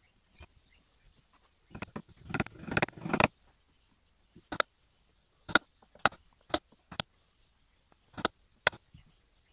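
Hand tools and small metal parts being handled on a workbench: a quick clatter of clicks and rattles about two seconds in, then a series of separate sharp taps and knocks about half a second to a second apart.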